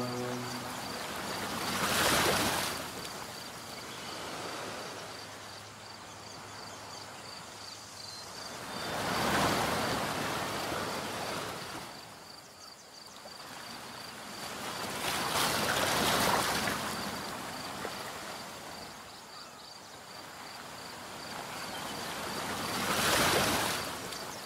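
Waves washing in on a shore, each wash swelling and fading about every seven seconds.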